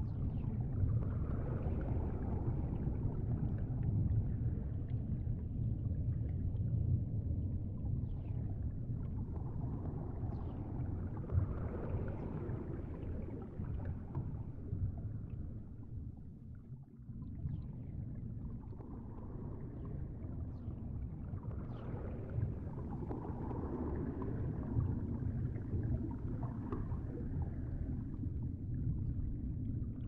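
Low, steady underwater water rumble with slow, washing swells. The level dips briefly about halfway through.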